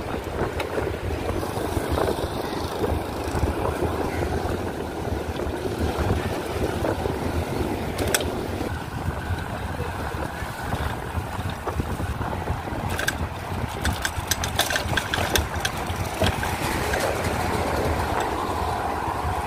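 Steady wind rumble on the microphone of a moving bicycle with road traffic running underneath. A single sharp click comes about eight seconds in, and a quick run of clicks comes about two thirds of the way through.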